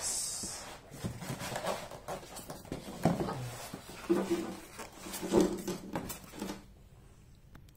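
Styrofoam packing and cardboard box rubbing, scraping and squeaking as they are pulled apart by hand, with a few knocks. It goes much quieter about six and a half seconds in.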